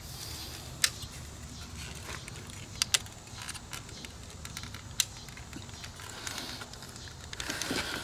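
Sharp plastic clicks and light rattling as a power window switch panel's wiring connector is pressed and worked loose by hand. There are four clicks: one about a second in, a quick pair near the middle, and one more a little later.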